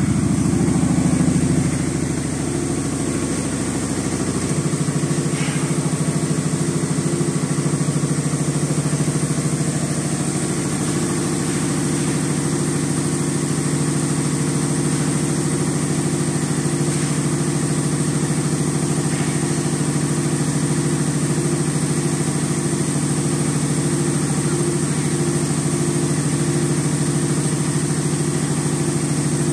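Four-head CNC punching and perforation machine running, a steady low mechanical hum with a fast, even pulsing from its punch heads. It is a little louder for the first two seconds, then stays steady.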